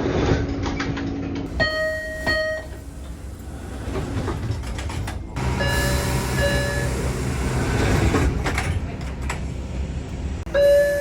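MBTA Orange Line subway car door chimes heard from inside the car: a chime sounding twice in quick succession about two seconds in, another about six seconds in, and a third starting near the end, with the train's rumble and rattle between. The recordings cut abruptly from one to the next.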